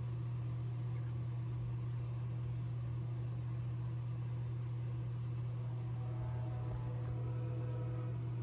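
A steady low hum over a faint even hiss: the room's background noise.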